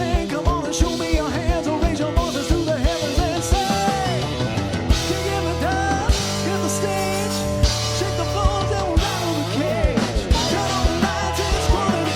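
A live country band playing a song at full volume, with a steady kick-drum beat, sustained bass notes and a melodic line that bends and wavers above them.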